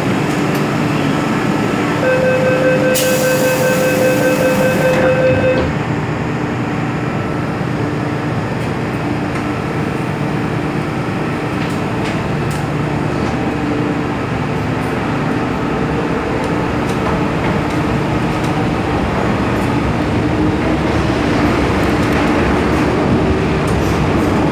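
MTR M-Train at a station platform: the door-closing warning beeps for about three and a half seconds and the doors slide shut. The train then pulls away, its traction motor whine rising in pitch as it gathers speed.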